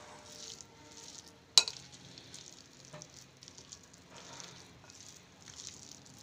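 A spoon stirring a moist mixture of hung curd, crumbled paneer and chopped vegetables in a glass bowl: soft squelching, scraping strokes about twice a second. A sharp clink of the spoon against the bowl about one and a half seconds in, and a lighter tap about three seconds in.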